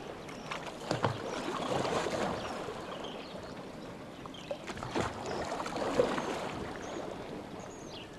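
Oars dipping and pulling through lake water as a rowboat is rowed, with splashing and trickling, and sharper splashes about a second in and again around five and six seconds in.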